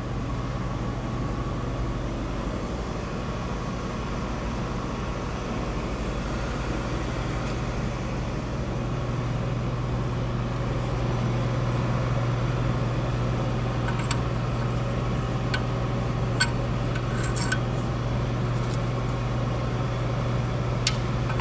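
Steady low mechanical hum, with a few sharp light clicks in the second half.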